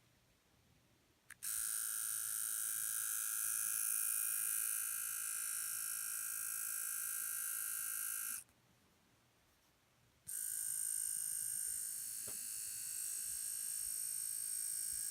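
Small brushed DC drive-wheel motor from a robot vacuum, freshly recrimped, running free on a 9-volt battery as a test after repair: a steady high whine, run twice for several seconds each with a pause between.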